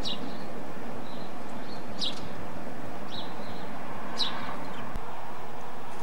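Birds chirping: several short, high chirps that fall in pitch, the clearest three about two seconds apart, over a steady background hiss.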